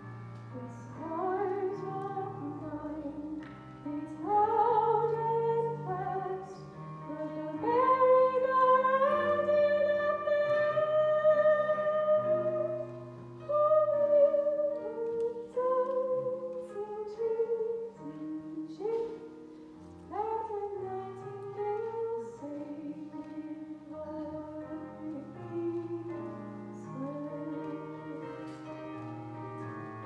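A woman singing a slow solo ballad over piano accompaniment. She holds one long, loud note with vibrato from about eight to thirteen seconds in.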